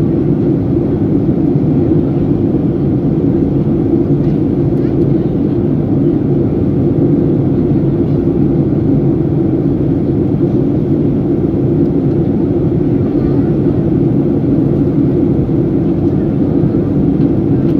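Steady cabin noise inside a Boeing 737-800 in flight: a low, even drone of its CFM56-7B engines and the airflow over the fuselage, unchanging throughout.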